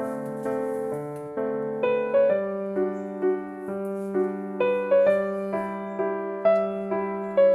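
Background piano music: a melody of held notes struck about twice a second over a sustained low note.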